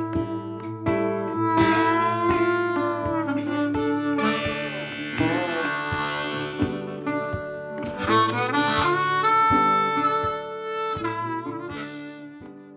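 Outro music: an instrumental tune with a steady beat and a bending lead melody, fading out near the end.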